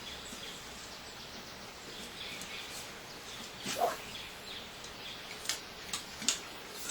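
Faint outdoor background with distant bird calls, broken by a few short clicks and knocks, the loudest about four seconds in.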